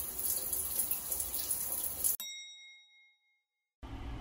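Shower water spraying onto tiles, a steady hiss that cuts off suddenly about two seconds in. A single bright chime then rings out and fades over about a second, followed by a moment of silence and then quiet room tone.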